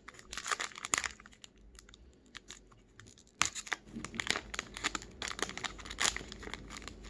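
Foil trading card pack being pulled open at its crimped seam, its wrapper crinkling and tearing in two bouts of crackles, one about a second in and a longer one from about three and a half seconds.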